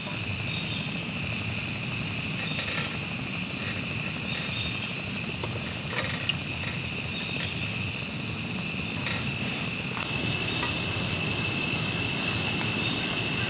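Portable gas stove burner running with a steady low rush under a cast iron grill pan, with butter and bread sizzling and crackling lightly on the pan. A steady high insect drone sounds behind it, and there is a light click about six seconds in.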